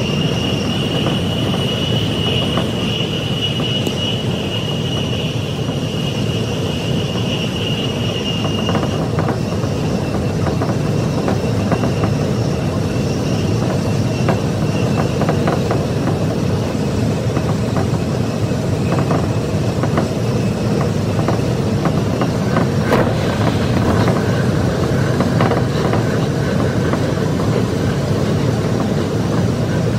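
Tsukuba Express electric train running at speed, heard from inside the driver's cab: a steady rumble of wheels on rail, with a high whine over it for the first nine seconds or so that then fades, and scattered light clicks.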